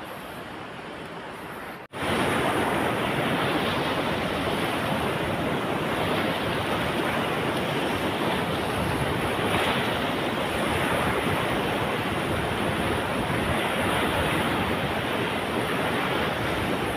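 Siang River rushing through rapids: a loud, steady wash of fast white water that starts suddenly about two seconds in.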